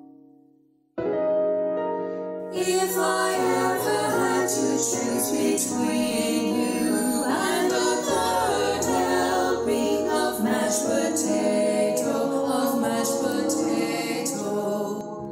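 Choir singing: after about a second of near silence the voices start suddenly and carry on through a choral song.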